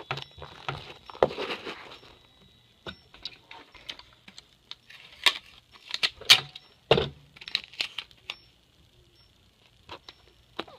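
Hands handling a small cardboard box and its paper address label on a wooden table: rustling paper and scattered taps and knocks, with a few sharp clicks around the middle.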